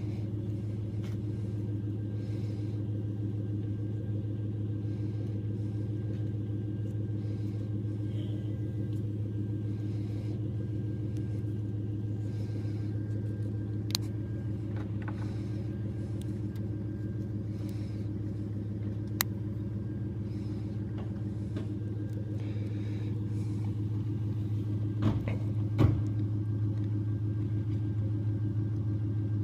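A 2010 Ford F-150's 5.4-litre V8 idling at a steady, unchanging pitch with no hunting in engine speed. A few sharp clicks sound around the middle, and a couple of louder knocks come near the end.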